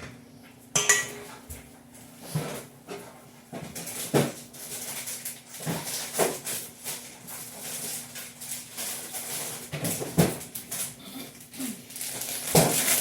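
Kitchen clatter: scattered knocks and clunks of things being handled and set down, over a faint steady low hum, with rustling building near the end.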